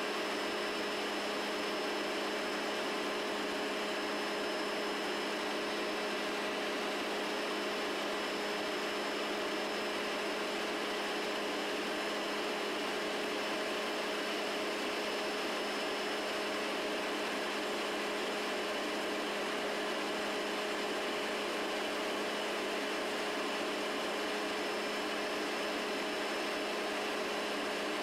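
Helicopter cabin noise in steady cruising flight: an even rush of engine and rotor noise with a few steady tones running through it, unchanging in pitch and level.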